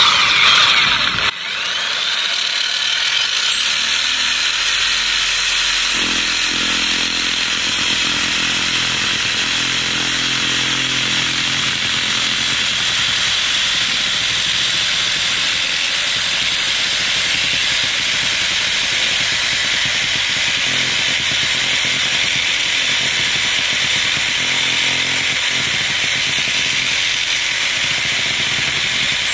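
A handheld power tool switched on about a second in, its motor whine rising over a few seconds to a high steady pitch, then running continuously with a steady cutting noise before it stops at the end.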